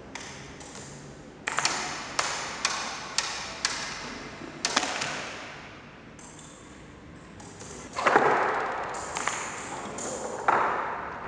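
Electro-mechanical baboon automaton at work: a run of sharp knocks with short ringing pings, as wooden cups are moved and set down on a wooden table. Louder mechanical clattering starts about eight seconds in.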